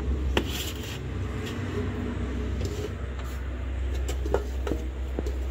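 A steady low rumble, with a few light knocks and clicks of a utensil against an aluminium steamer pot as a whole steamed chicken is lifted out, one near the start and several near the end.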